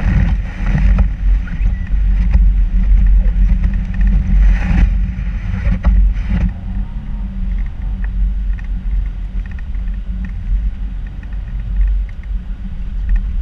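Vehicle plowing through deep snow: a steady, heavy low rumble of the running vehicle, with snow spraying against the front-mounted camera and a few sharp knocks during the first six or so seconds, after which only the rumble goes on.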